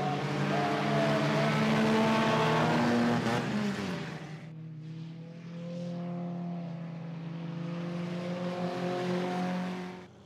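Stock car engines racing as a pack of cars passes close by, loudest about two to three seconds in. The sound drops suddenly after about four seconds to a steadier, quieter engine note from cars farther down the track, which falls away sharply near the end.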